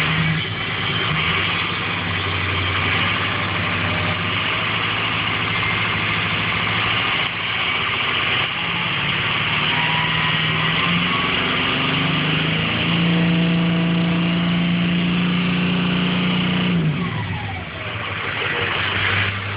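Ford 6.0 Powerstroke diesel engine running with its solenoid plugged in, a harsh, nasty rushing noise from the rear of the truck over the engine note. The engine speed climbs in the second half and drops back near the end while the boost gauge stays at zero; the noise goes away when the solenoid is unplugged, and the owner has no idea of the cause.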